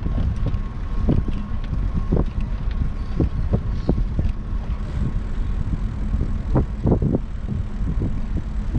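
Riding noise from a bicycle-mounted camera: wind on the microphone and a low road rumble, with frequent short knocks and rattles as the bike rolls over the pavement, a loud cluster of them about two-thirds of the way through. A faint steady high whine runs underneath.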